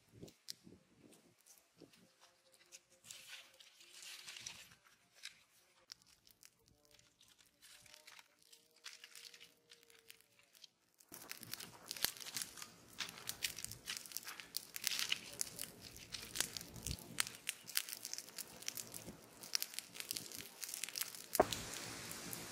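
Campfire of dry sticks crackling. At first the crackles are faint and sparse from a fire burned down to embers, then about halfway through they turn dense and louder as the fire blazes with fresh sticks, with one sharper pop near the end.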